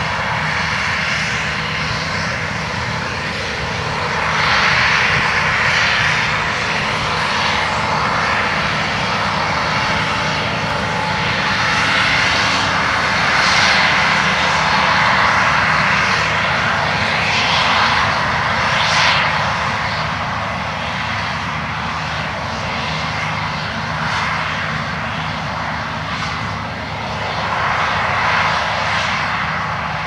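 Case IH combine running as it harvests soybeans: a steady engine hum under a rushing noise from the header and threshing, swelling and fading several times.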